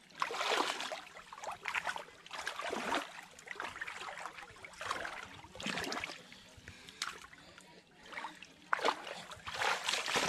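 Shallow muddy pond water splashing and sloshing in irregular bursts, about one a second, as hands grope through it around a submerged brush pile, feeling for fish.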